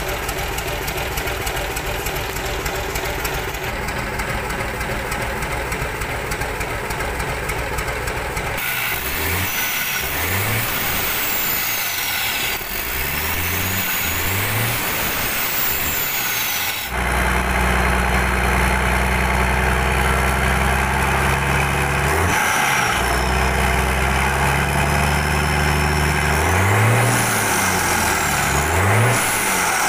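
Mitsubishi Fuso 6D22 inline-six truck diesel running on a test stand after repair. It idles steadily at first, then is revved in short blips several times. About halfway through it is held at higher revs for a few seconds, then it drops back and is blipped again near the end.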